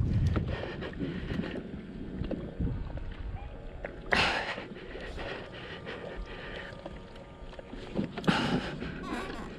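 An angler breathing hard while fighting a big tuna from a kayak: two loud rushes of breath about four seconds apart. Underneath are wind on the microphone and water against the hull, with a low buffet of wind at the start and a few light clicks.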